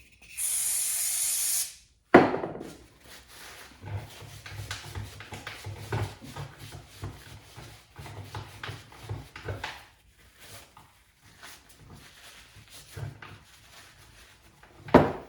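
A hiss of aerosol brake cleaner sprayed onto the driveshaft's double-cardan joint for about a second and a half, then a sharp knock and a long stretch of soft wiping and rubbing on the metal, with another sharp knock near the end.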